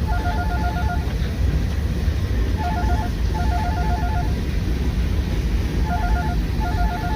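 A phone ringing with a warbling electronic ring: rapid pulses in a short burst then a longer one, repeating about every three seconds. A steady low rumble runs underneath.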